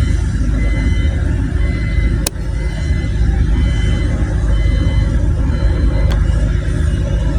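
Road traffic rumbling steadily, with a sharp click about two seconds in and another about six seconds in.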